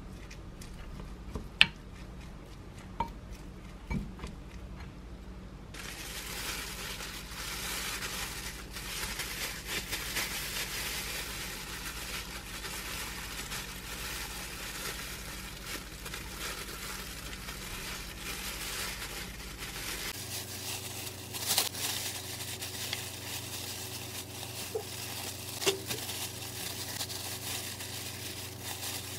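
A wooden spoon scraping rice out of a glass bowl, with a few sharp clinks in the first few seconds. From about six seconds in, thin plastic food-prep gloves crinkle and rustle steadily as gloved hands press rice balls and handle raw bacon on a wooden cutting board.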